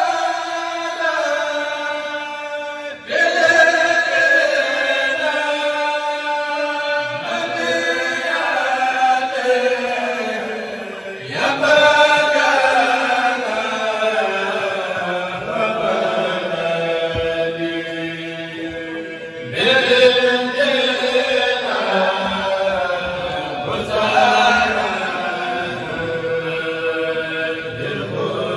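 A group of men chanting Mouride devotional poems (khassaid) together into microphones, amplified over a PA. They sing long melodic phrases: each swells in loudly, then slides slowly down in pitch, with a new phrase starting every several seconds.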